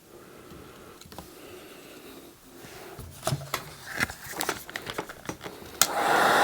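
Light clicks and knocks of plastic parts and a tool being handled. Near the end a heat gun clicks on and starts blowing with a steady rush of air.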